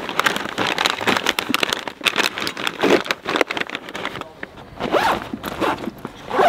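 Nylon backpack fabric rustling and plastic food packets crinkling as items are pushed into the open backpack, a dense run of short scrapes and crinkles.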